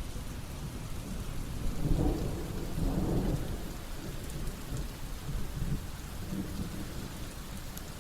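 Steady rain with a low rolling rumble of thunder that swells about two seconds in and fades by about four seconds.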